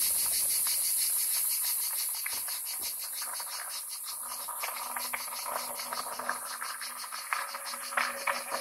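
Insects chirping in a fast, even pulse of about eight beats a second over a steady high hiss. From about halfway, a mountain bike coming closer over loose gravel adds irregular crunching and rattling from its tyres on the stones, louder near the end.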